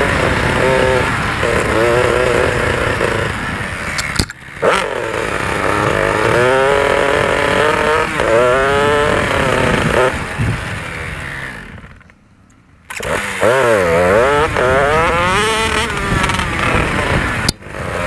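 Enduro dirt bike engine being ridden along a trail, its revs rising and falling again and again with the throttle. About twelve seconds in the sound drops out for about a second, then the engine comes back.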